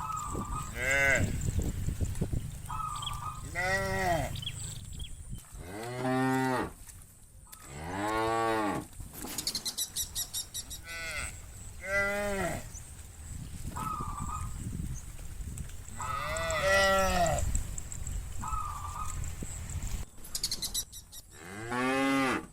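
A herd of cows mooing: about eight separate long moos, one after another, each rising and then falling in pitch, over a steady low rumble.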